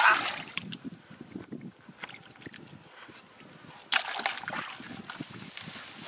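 A hand sloshing and splashing in shallow muddy water while groping into a hole in the bank for fish, with a sudden louder splash about four seconds in.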